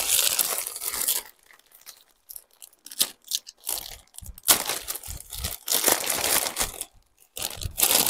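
Grey plastic poly mailer bag being cut with scissors and pulled open by hand: several bursts of plastic rustling and tearing with short pauses between, and a few short snips around the middle.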